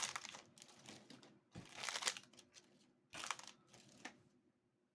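Plastic packaging crinkling as it is handled, in four short bursts, then dying away near the end.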